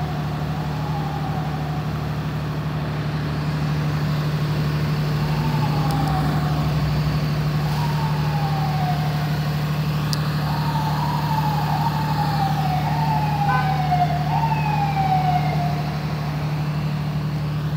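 Emergency-vehicle siren giving short wails that fall in pitch, a few seconds apart at first and then one after another in the second half, over a steady low drone of idling emergency vehicles.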